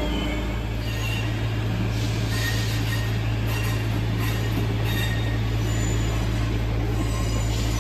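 Merseyrail Class 507 electric multiple unit running slowly into the platform: a steady low hum from the train with even rail noise and short, faint high squeals from the wheels.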